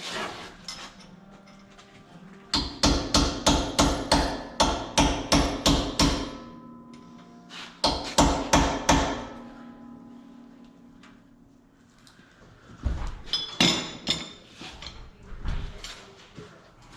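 Hammer blows on the steel parts of a truck's rear wheel hub: a fast run of about a dozen ringing strikes, roughly three a second, then a shorter group of about four, and a few lighter clanks near the end.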